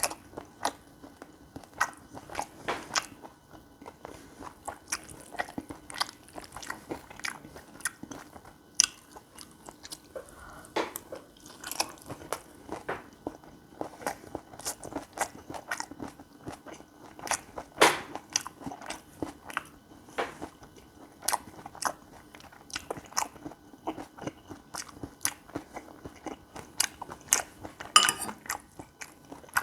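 Close-miked eating of gopchang (beef intestine) fried rice: chewing and biting with many sharp, irregular mouth clicks.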